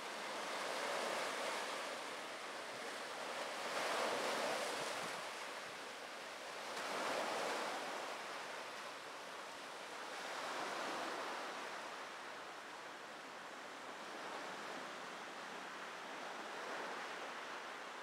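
Small waves breaking and washing up on a sandy, boulder-strewn shore, each wash swelling and fading about every three seconds over a steady hiss of surf, growing gentler in the second half.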